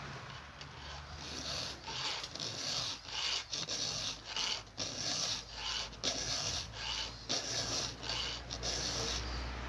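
A round chainsaw file scraping through the cutters of a Stihl chainsaw chain in repeated strokes, about two a second: the chain is being hand-sharpened.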